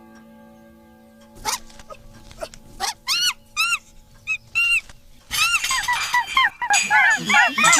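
The last stroke of a pendulum wall clock's chime rings on and fades away. From about three seconds in, short squawking calls, each rising then falling in pitch, come a few at a time, and from about five seconds in many overlap in a loud, dense chorus.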